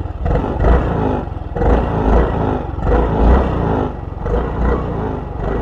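Yamaha Fazzio scooter's 125 cc single-cylinder engine running through its stock exhaust, rising and falling in loudness several times.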